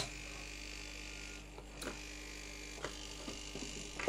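Hot air rework station's blower running with a steady hum, a few light clicks over it.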